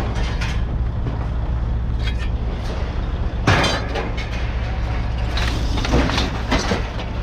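A steady low engine hum, with several sharp metallic clanks and bangs of scrap being thrown onto a pile, the loudest about three and a half seconds in.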